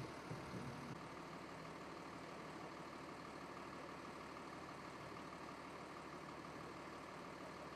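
Vehicle engine idling steadily, a low hum, with a brief deeper rumble in the first second.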